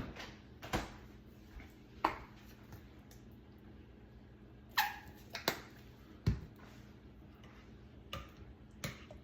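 Scattered light knocks and clicks of kitchen dishes and utensils being handled, with a short squeak that falls in pitch nearly five seconds in.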